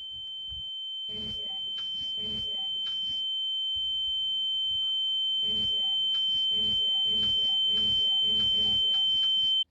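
A single steady, high-pitched electronic tone swelling steadily louder, then cutting off abruptly, with faint rhythmic pulsing sounds underneath.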